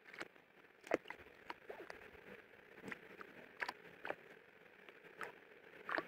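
A young Australian magpie bathing in a shallow puddle of soapy water, flicking and splashing the water in short, irregular splashes, about eight of them.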